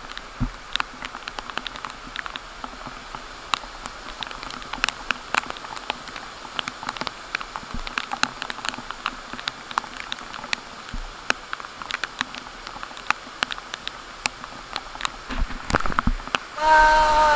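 Rain drops pattering irregularly, several sharp taps a second, over a steady hiss. Near the end a louder, steady rushing noise sets in.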